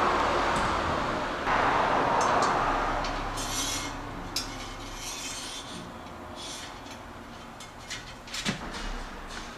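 Bicycle inner cable being pulled through its housing and the frame, first a loud hissing rub, then scratchy rubbing strokes. A few light clicks come near the end.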